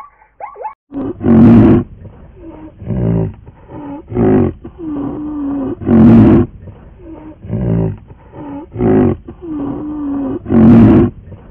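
A large wild animal roaring: a loud drawn-out roar about every four and a half seconds, three times, with shorter grunts between, in a pattern that repeats almost exactly.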